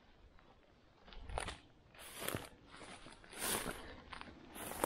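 Footsteps through the undergrowth and leaf litter of a forest floor, about one step a second, starting about a second in.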